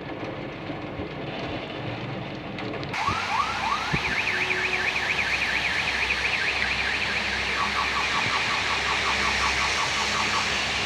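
Steady hiss of heavy rain that opens up about three seconds in, with a car alarm cycling through its tones over it: a few rising whoops, then a fast warble, then a run of rapid chirps.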